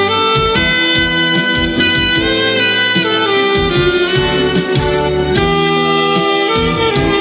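Instrumental music: a saxophone playing a slow melody of long held notes, sliding between pitches, over a backing track with bass and drums.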